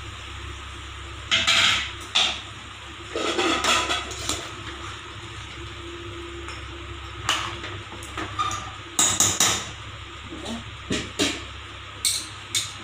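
A steel ladle stirring curry in a metal pressure-cooker pot, clinking and scraping against the pot in several short bursts over a steady background hiss.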